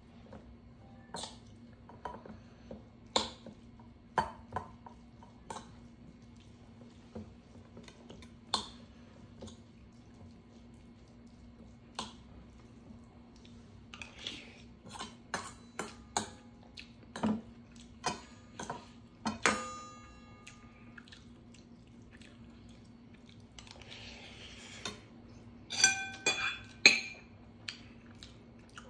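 A metal spoon clinking and scraping against a stainless steel bowl while stew and rice are scooped and eaten. The clicks come scattered, some ringing briefly, with a burst of several loud ringing clinks near the end.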